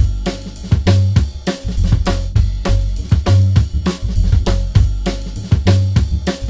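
Background music with a steady drum-kit beat, snare and cymbal hits, over a bass line.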